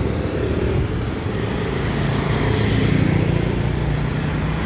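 Road traffic: a motor vehicle's engine running close by, growing louder about halfway through, over steady traffic noise.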